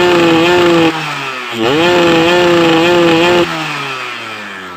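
Yamaha F1ZR's single-cylinder two-stroke engine being revved in two held blips: a quick rise held for about a second, a dip, then a second rev held for about two seconds before the revs slowly fall away near the end.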